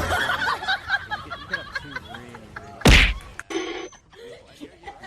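A single loud whack, a sharp impact about three seconds in.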